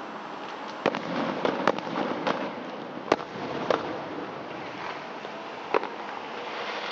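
Fireworks display heard from a distance: a run of sharp bangs from bursting aerial shells, the loudest about a second in and about three seconds in, over a continuous crackling haze.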